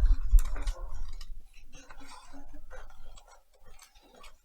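Scissors snipping, a quick, uneven series of sharp clicks, with a low handling rumble in the first second.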